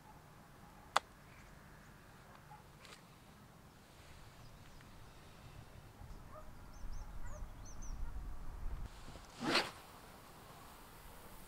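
Fishing tackle being handled: a sharp click about a second in, low rumbling movement, then a short zip-like rasp near the end, the loudest sound here. Faint birds chirp midway.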